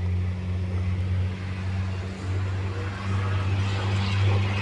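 Diesel engine of a Scania 124G 360 truck idling steadily, a low even drone heard inside the cab. A hiss rises over it near the end.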